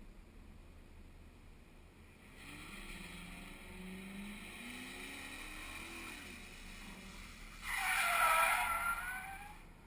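A car on a skid pad, heard at a distance: its engine note rises and falls from about two seconds in. Near the end come about two seconds of loud tyre squeal as the tyres break loose in a skid.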